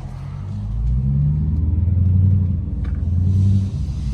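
Straight-piped 5.7 HEMI V8, its mufflers and resonators removed, rumbling loudly as the car pulls away under throttle, the pitch climbing in the first second or so and easing off near the end.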